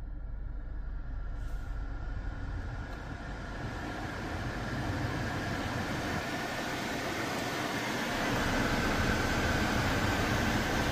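Skoda Octavia III running with its air-conditioning blower on: a steady rushing of air over a low engine hum, growing gradually louder.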